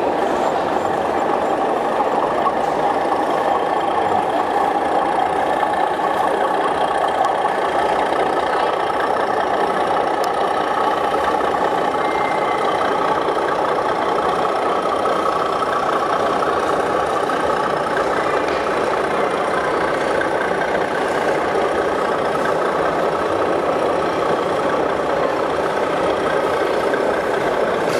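Recorded diesel engine sound from a model locomotive's sound unit, running steadily at a low, idling-like pace for the whole stretch.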